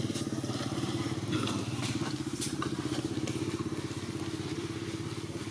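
A small engine running steadily: a low, fast-pulsing hum, with a few faint clicks over it.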